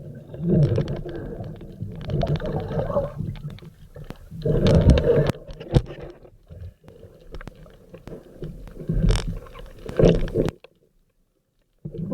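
Muffled underwater rumbling and swirling, with scattered sharp knocks, as picked up by a camera in a waterproof housing; it comes in uneven surges and cuts off abruptly about ten and a half seconds in.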